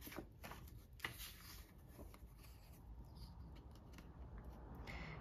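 Faint rustling and light taps of paper greeting cards being handled and swapped, mostly in the first second or so.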